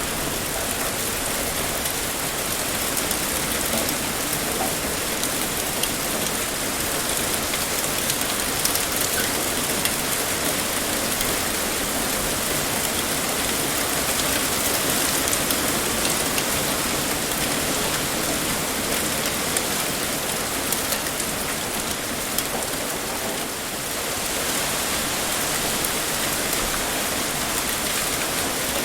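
Heavy rain pouring steadily, a dense even hiss with many small drop ticks, briefly easing a little about three-quarters of the way through.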